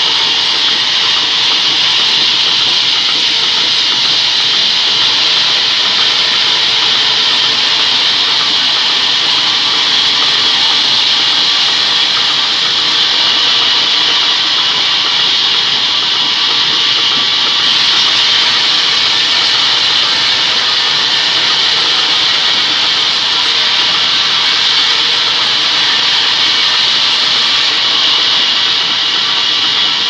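Large vertical band saw running and ripping a rain tree log lengthwise: a loud, steady, even rushing noise from the blade and wood with no breaks.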